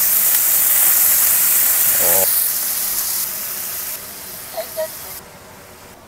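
Beef pieces sizzling as they sear in a hot pan: a loud, steady hiss that drops away in steps after about two seconds.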